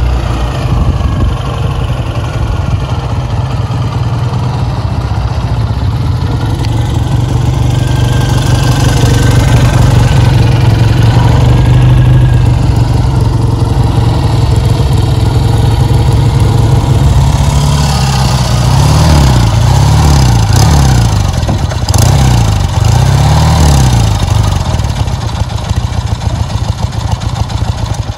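Classic British 650 cc parallel-twin motorcycles, a BSA A65 Lightning and a Triumph Bonneville, running as they ride slowly in and pull up. Their engines are blipped up and down several times about two-thirds of the way through.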